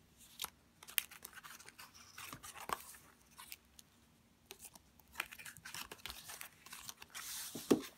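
Paper pages, tags and photos of a handmade junk journal rustling and flapping as they are handled and turned, with scattered light taps and ticks; a louder rustle of a page being turned about seven seconds in.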